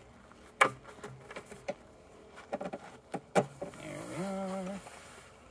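Handling of a wooden alphorn section with metal ends as it is slid into a padded cloth bag: a few sharp knocks, then fabric rubbing along the tube near the end, with a short hum-like tone over it.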